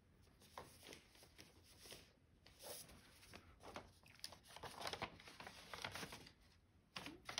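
Faint, irregular rustling and crinkling of embroidery floss being handled and sorted by hand, busiest a little past halfway.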